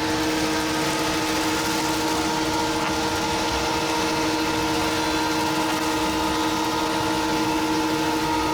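CNC router spindle running with a steady whine while machining a clear acrylic panel.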